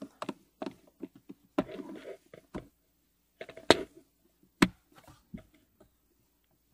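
Scattered plastic clicks and knocks as the Hyundai i30's glovebox stoppers are pushed back into place, with two sharper clicks about three and a half and four and a half seconds in.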